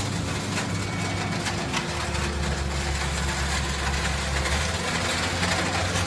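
Hydraulic power unit of a Y81 metal scrap baler running with a steady mechanical hum. The hum deepens for about two and a half seconds in the middle.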